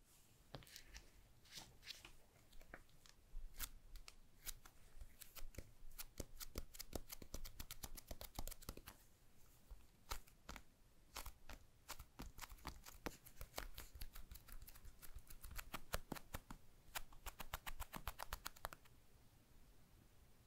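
Fingers and nails tapping and handling a Google Pixel 6 smartphone: quiet, irregular clicks and taps on its glass and frame, thickening into a fast, even run of clicks near the end before they stop.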